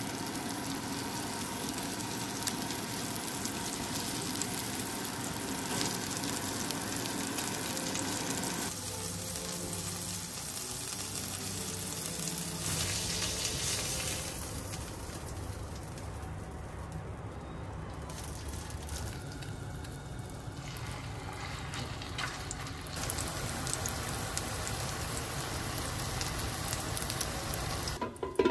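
Minced chicken patty frying in bubbling fat on a ribbed grill pan, sizzling steadily.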